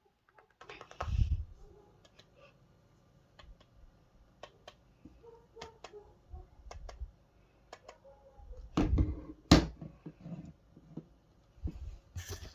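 Scattered light taps and clicks from handling, with a dull thump about a second in and two louder sharp knocks close together about nine seconds in.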